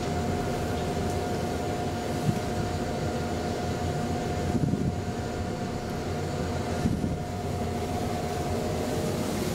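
KONE traction elevator car travelling in its shaft: a steady low hum with a constant mid-pitched whine, and a few light knocks along the way.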